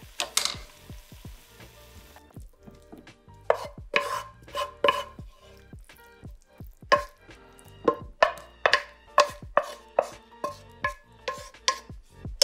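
Wooden spatula knocking and scraping against a wok as sauce-coated fried pieces are pushed out onto a plate: a string of sharp knocks, about two a second, starting about three and a half seconds in. Before that, a faint sizzle dies away.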